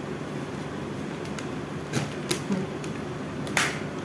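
Steady low room hum with a few scattered light clicks and taps from a puppy moving about on a hard tiled floor. The loudest is a short scrape near the end.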